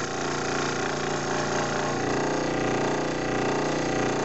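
Scroll saw running steadily as its blade cuts a short slice into a 1.5-inch-thick wood block, fed hard enough that the cut smokes.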